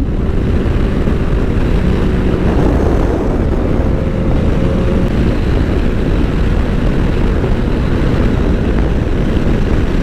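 Honda NC750X's parallel-twin engine rumbling steadily as the motorcycle rides along at road speed.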